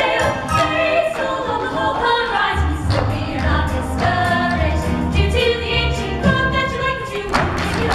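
A trio of girls singing a musical-theatre number in harmony, with low accompaniment notes coming in about two and a half seconds in.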